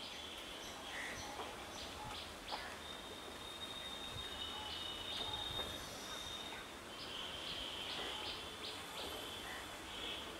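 Insects chirping: a high, thin buzzing that comes and goes, with short chirps scattered through it, over faint background hiss.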